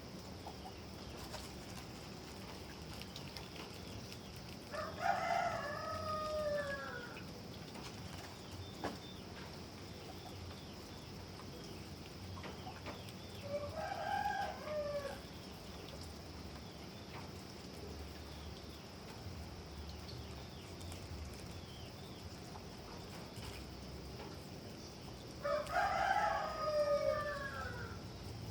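A rooster crowing three times, each crow lasting one to two seconds and falling in pitch at the end, over a steady background hiss.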